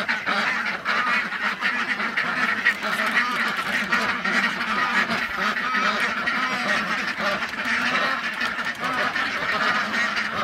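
A flock of Indian Runner ducks quacking continuously, many overlapping calls at once: hungry ducks clamouring for food.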